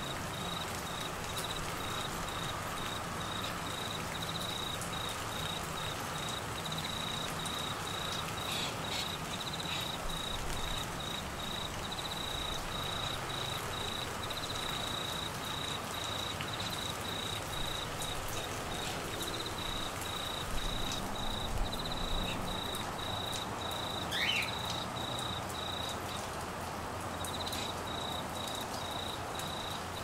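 Steady rain falling, with an insect trilling in quick even pulses at one high pitch throughout. A couple of short, high chirping calls cut in briefly, one about a third of the way in and another later on.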